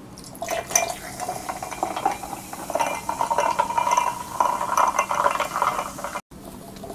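Carbonated cola poured from a plastic bottle into a glass mug of ice: a splashing stream with fizz and ice clinking, its pitch rising steadily as the mug fills. It cuts off abruptly near the end.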